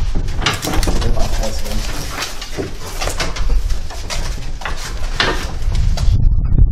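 Wooden pedal rice thresher being lifted and shifted: repeated knocks and scrapes of its wooden tub, over a steady low rumble.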